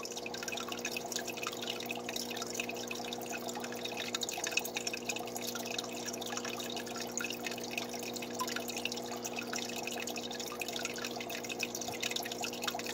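Aquarium water trickling and dripping steadily, with many small irregular drips, under a steady low hum.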